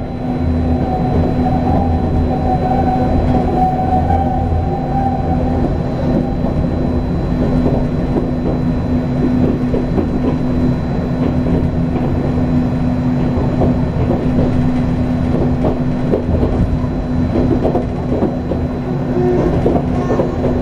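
Running noise of a Sangi Railway Hokusei Line narrow-gauge (762 mm) electric train heard from inside the carriage: a steady hum over a rumble, with the wheels clattering and knocking on the track. A higher whine fades away in the first few seconds.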